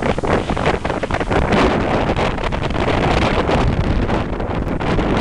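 Strong tropical-storm wind buffeting the microphone: a loud, uneven rumble and rush that swells and dips with the gusts.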